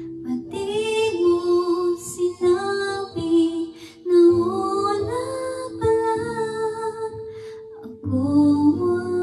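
A woman singing through a handheld karaoke microphone, her voice amplified by a JBL PartyBox On-The-Go speaker over a karaoke backing track, with short breaks between phrases about four and eight seconds in.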